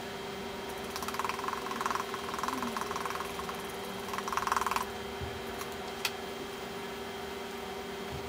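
Salt poured from a canister into a cup of water: a fine grainy patter in two spells over about four seconds, then a single sharp click. A steady hum runs underneath.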